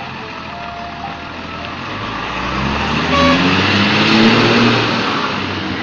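Heavy road vehicle passing close by, its engine and road noise building to a peak about three to four seconds in, then easing off slightly.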